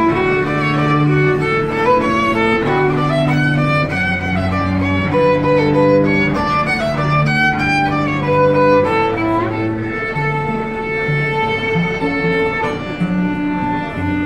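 Live violin and cello duet, the violin playing a melody over sustained cello notes.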